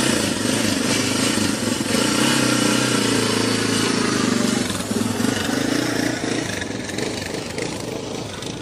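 A motor engine running steadily with a dense hiss over it, easing off somewhat near the end.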